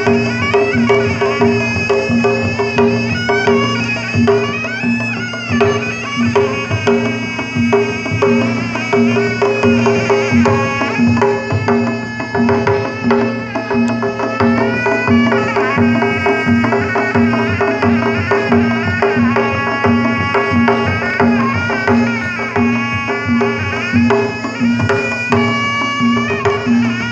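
Traditional Sundanese pencak silat accompaniment: hand drums beaten in a dense rhythm under a bending, ornamented reed-pipe melody, with steady pulsing low tones.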